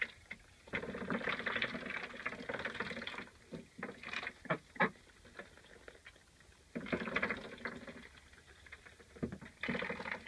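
Ducks and chickens feeding at a waterer in straw: spells of rapid fine chattering from duck bills dabbling in water and feed, with a few sharp single pecks in between, around four to five seconds in.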